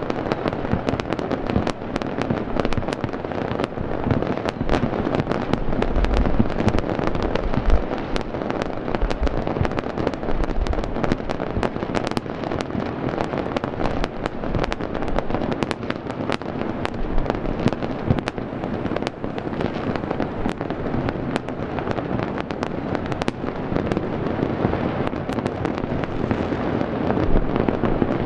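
Aerial fireworks display: a continuous dense barrage of sharp bangs and crackling, with deeper booms now and then.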